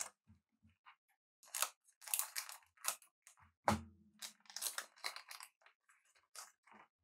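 Trading cards being handled and flipped through: irregular rustles and small clicks as the cards slide against one another, with one fuller bump a little before the four-second mark.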